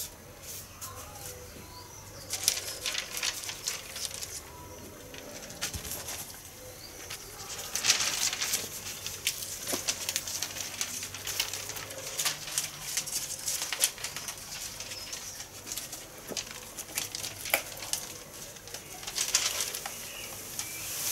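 Cut paper stencil sheets rustling and crackling as they are handled and peeled off a spray-painted board, with many small irregular crackles that get busier about two seconds in and again near the middle.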